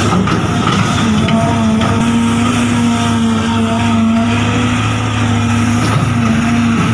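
Radio-controlled model construction vehicles running, a steady engine-like hum with a whine that wavers slightly in pitch.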